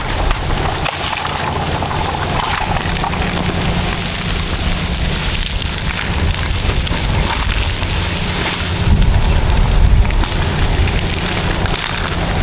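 Caterpillar bulldozer diesel engines running under load while dragging an anchor chain through scrub, with a dense crackling of brush and timber snapping and splintering over the steady engine drone.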